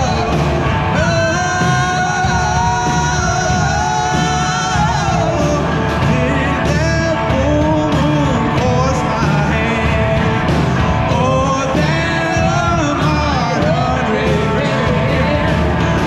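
Live rock band playing with sung vocals over electric guitars, bass, drums and keyboard, heard loud and rough through a GoPro's built-in microphone.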